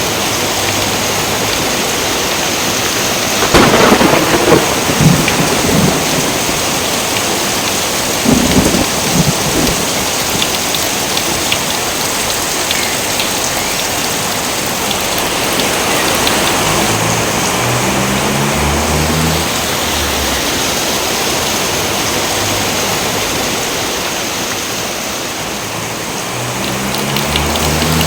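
Steady heavy rain in a thunderstorm, with two loud thunder cracks, about four and eight seconds in.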